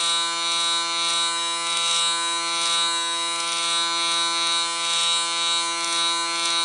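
Panasonic ER-SC60-S linear-motor hair clipper running with a steady buzzing hum while its blade trims short hair around the ear.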